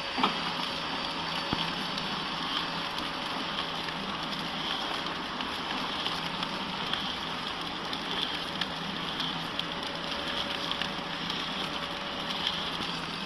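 YX-450A horizontal flow pack wrapping machine running empty, feeding packaging film through with no product: a steady mechanical running noise with a fine crackle and a faint pulse about once a second.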